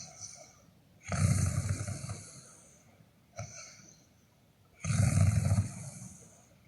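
Snoring: two loud snores nearly four seconds apart, each lasting almost two seconds, with a softer, shorter breath between them.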